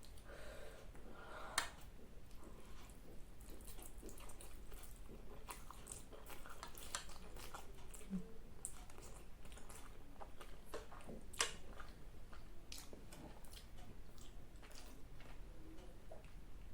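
A person chewing food close to the microphone, with many small wet mouth clicks and two sharper, louder clicks, one about a second and a half in and one past the middle.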